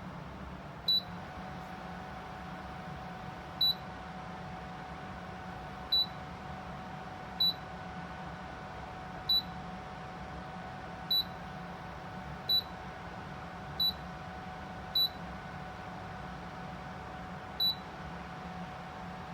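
Electric tower fan running with a steady whir and a faint hum, its control panel giving about ten short, high beeps at irregular intervals. The beeps are the fan acknowledging button or remote presses as its settings are changed.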